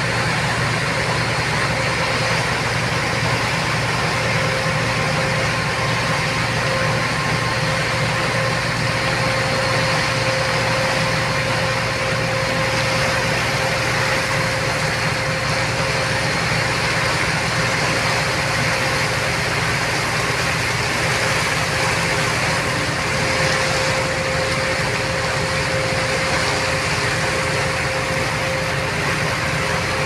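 Ship's engine droning steadily with a faint held hum, over the rush of water churning in the wake.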